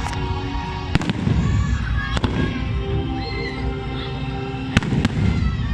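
Aerial display fireworks bursting over a steady low rumble, with four sharp bangs: about one second in, a little after two seconds, and two close together near the end. Music for the show plays underneath.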